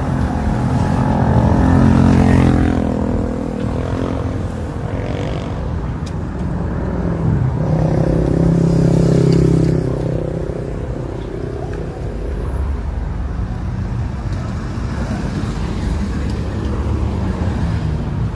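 A motor vehicle's engine running, its pitch sliding down about two seconds in and rising again around eight seconds.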